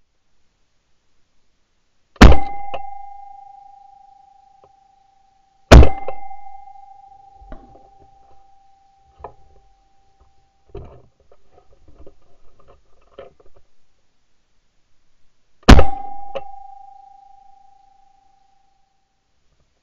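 Three shotgun shots: the second about three and a half seconds after the first, the third some ten seconds later. Each is followed by a steady ringing tone that fades over a few seconds, with softer knocks and handling noises between the second and third shots.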